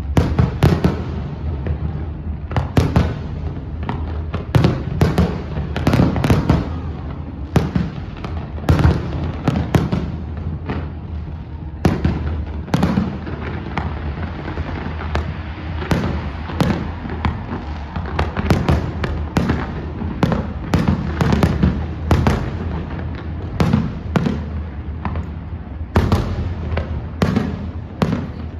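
Fireworks display: a dense, continuous barrage of shell bursts and crackling reports, several a second, over a steady low rumble.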